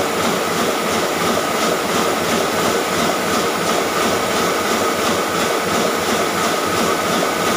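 Sheet-fed offset printing press running steadily while delivering printed sheets, a continuous mechanical noise with a steady whine and a faint, even, repeating beat.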